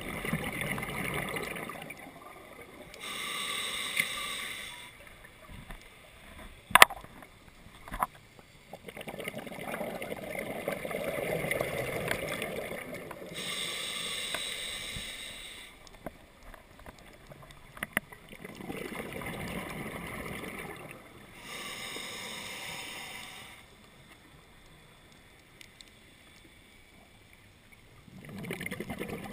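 Scuba breathing through a regulator underwater, in slow cycles of bubbling exhaust and hiss, three breaths in a row, then a pause before the next. A sharp click comes about seven seconds in.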